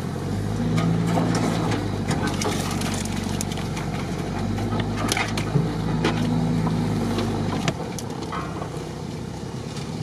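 Off-road SUV engine running at low speed, heard from inside the cabin, its note rising and falling a few times with the throttle. Occasional knocks and rattles come through as the vehicle rolls over the rutted dirt track.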